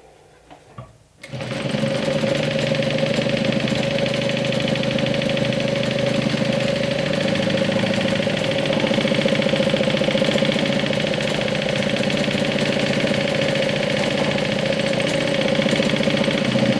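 Juki DU1181N industrial walking-foot sewing machine starting up about a second in and stitching at a steady speed, basting a pocket onto a bag panel.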